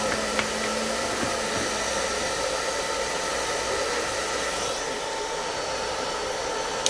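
Hair dryer running steadily on its coldest, lowest setting: an even rush of air with a faint steady whine. It is switched off with a click at the very end.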